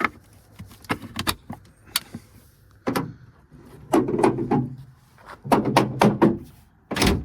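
Hand work on a pickup truck: a string of sharp clicks, knocks and clunks of metal parts being handled, ending in one loud thump near the end.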